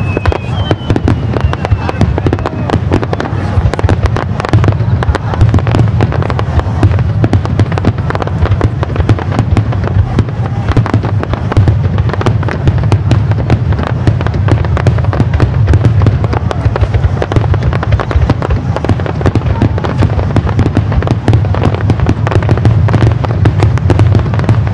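Aerial fireworks display going off continuously: dense, rapid crackling and popping over a steady low rumble. A faint falling whistle sounds in the first two seconds.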